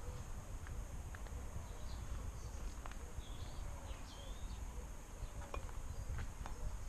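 Outdoor ambience: short, scattered bird chirps over a steady high insect drone and a low wind rumble, with a few faint clicks.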